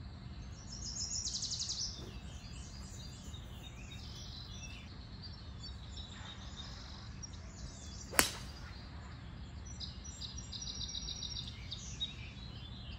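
A single sharp click of a 3-iron striking a golf ball off the tee, about eight seconds in.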